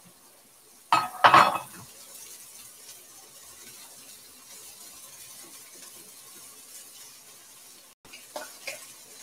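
Thin beef strips sizzling in a hot cast iron wok as they are stirred. There is a loud burst of sizzle and clatter about a second in, and a few light clinks of the utensil against the pan near the end.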